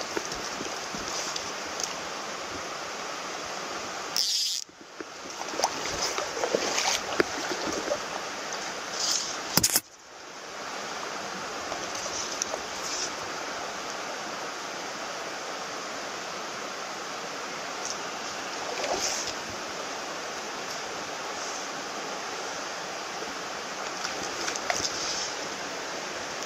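Shallow rocky stream running over stones: a steady rush of water with a few small clicks and rustles. The sound drops out sharply twice, about four and a half and ten seconds in, then comes back.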